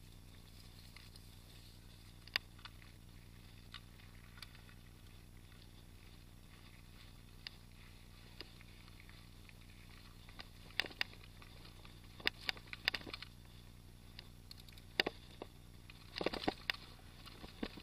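Mountain bike rattling over a rough dirt and gravel track: scattered sharp knocks and clatters, coming in quick clusters in the second half, over a faint steady hum.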